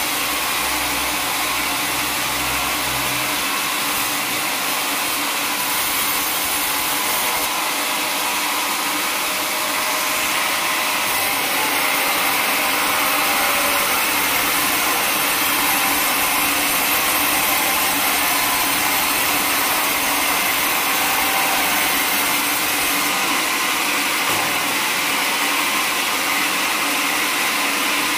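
Band sawmill blade cutting lengthwise through a teak log: a steady, continuous machine noise. A low hum drops away about three seconds in, and the sound grows slightly louder around ten seconds in.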